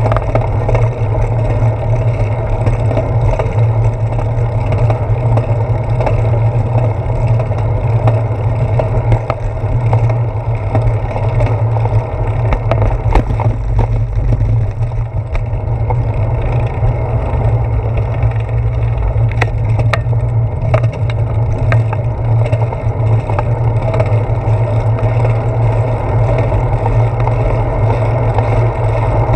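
Steady wind rush and low rumble on a handlebar-mounted GoPro's microphone as a bicycle rolls along pavement, with a few faint clicks from bumps.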